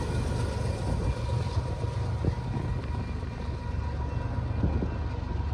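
Union Pacific grain train rolling away, a steady low rumble of its wheels on the rails with a couple of sharp clacks.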